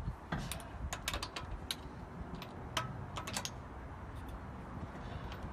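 Socket wrench working on a car's rear wheel bolts: a series of short, sharp clicks at uneven intervals, a few in quick runs.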